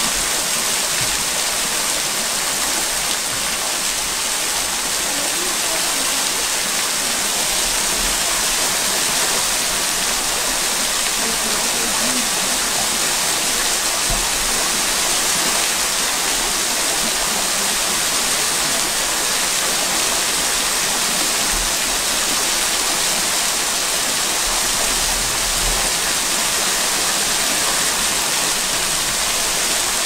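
Small waterfall, many thin streams of water falling down a mossy rock face and splashing, making a steady rushing hiss.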